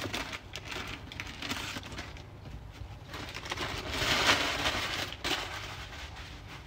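Damp kitchen paper towel rustling and crinkling as it is peeled off a raw fish fillet, in several bursts, loudest about four seconds in.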